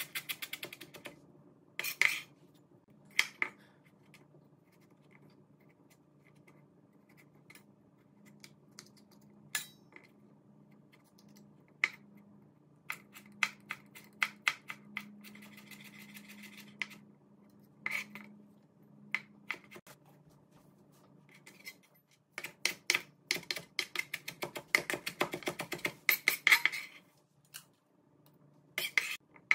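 Chef's knife chopping vegetables on a plastic cutting board: runs of quick, sharp knocks with quieter stretches between, and a dense burst of chops about three quarters of the way through.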